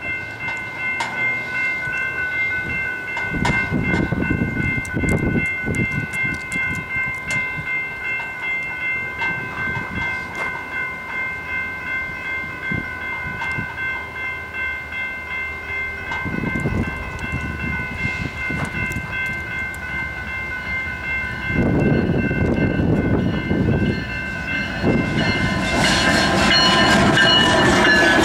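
Grade-crossing warning bell ringing steadily. About three quarters of the way in, the rumble of approaching diesel locomotives swells up. Near the end the lead locomotive's horn sounds, its pitch dropping as it passes.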